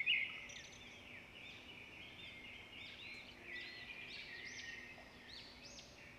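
Birds calling, many short rising-and-falling chirps overlapping in a steady chorus.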